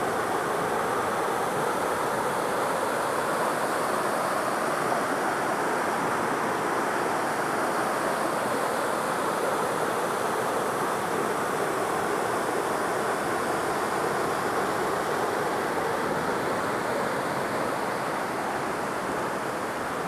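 Small waterfall pouring between boulders into a pool, a steady rush of water.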